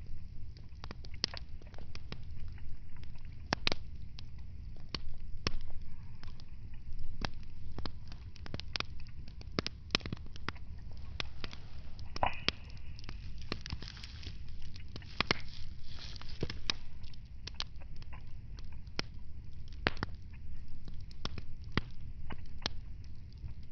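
Wood fire crackling, with frequent irregular sharp pops and snaps over the low rumble of the flames. A brief hiss rises about halfway through.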